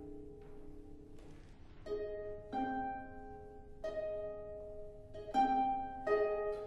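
Flute, viola and harp trio playing quiet contemporary classical music. A held chord fades away at the start, then about five soft plucked harp chords sound, each left to ring into the next.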